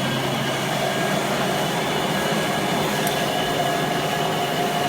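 Hoover Model 700 upright vacuum cleaner running steadily: an even motor drone with a low hum and a higher whine that grows a little stronger about a second and a half in.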